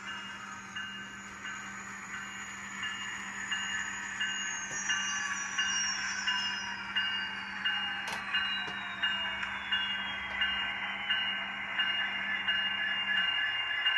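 ESU LokSound V5 micro decoder playing MP36PH diesel locomotive sound through the N-scale model's small speaker. A whine falls slowly in pitch as the model slows to a stop, with a short ring repeating about every two-thirds of a second.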